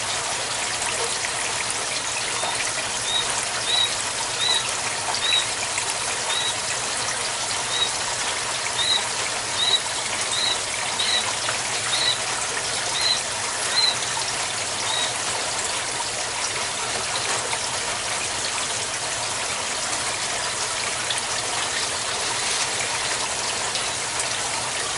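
Steady trickle of pumped water running from a PVC outlet pipe into an aquaponics grow bed of lava rock. From about three seconds in, a run of short, high chirps repeats roughly once a second for about twelve seconds.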